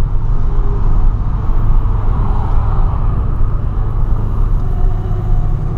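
Volkswagen Polo's engine and road noise heard from inside the car while driving, a steady low drone.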